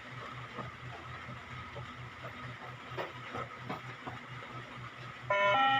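Faint steady hiss over a low, rapid pulsing hum, then near the end a short electronic beep signal of several tones stepping down in pitch: the beep-test cue that closes a level.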